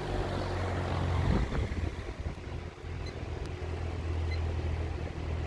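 Vintage Emerson Electric 20-inch reversible box fan running, a steady low motor hum under the rush of air from its blades. There is a short burst of louder noise just over a second in.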